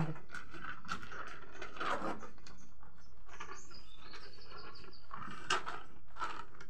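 Small birds chirping, with a quick run of high tweets about four seconds in, over steady room noise. There is also the rustle of a large paper sheet being handled, and one sharp crackle about five and a half seconds in.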